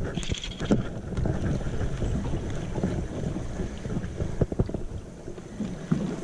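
Wind buffeting the microphone over water slapping against a small boat's hull, with a few short knocks.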